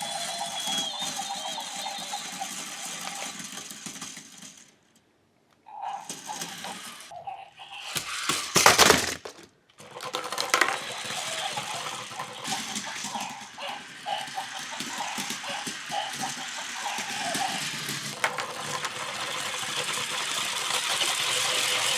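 Grrrumball remote-control toy's small electric motors and plastic parts rattling as it drives, spins and pounds its fists, with many small clattering knocks and a louder clatter about eight seconds in.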